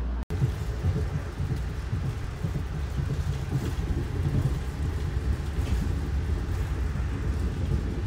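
Moving passenger train heard from inside the carriage: an uneven low rumble of the car running along the track.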